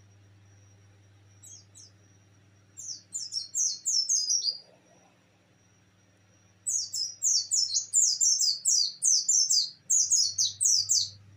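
Caged white-eye (pleci) singing in the rapid 'nembak' style: two bouts of sharp, high, falling notes at about four a second, the second bout longer. A faint steady high whine and a low hum run underneath.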